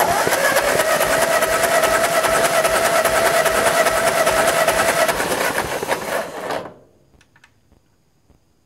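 The 1948 Ford 8N tractor's four-cylinder engine being cranked over by its electric starter for a compression test, with a steady starter whine, for about seven seconds before it stops abruptly. The gauge reads only about 55 psi, low compression that the owner suspects comes from valves not seating.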